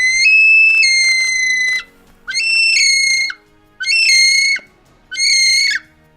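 Male kiwi calling: four loud, shrill whistles, each rising sharply at its start, the first long and the next three shorter.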